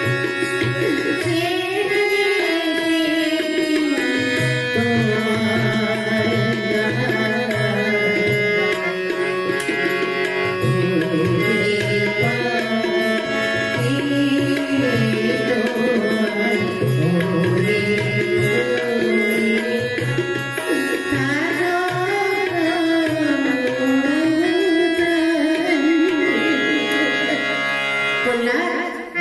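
A devotional name-song (naam gaan) sung by one voice in a wavering, gliding melody, with tabla keeping a steady rhythm beneath it.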